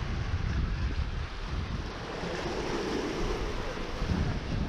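Sea waves washing and breaking against the rocks of a jetty, with gusts of wind buffeting the microphone.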